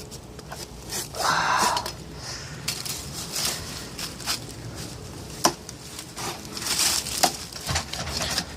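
Short hand saw working through a log, with irregular rasping strokes and sharp cracks and snaps of the wood as it gives way.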